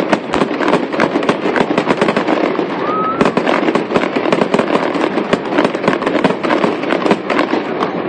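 Fireworks show: a dense, continuous crackle of many small popping bursts, many pops a second.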